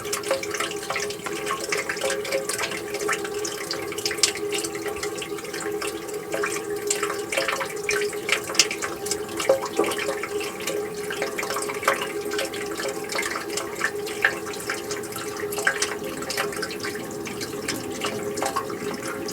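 Water running and splashing steadily, with a constant low pouring tone under many small, irregular splashes and drips.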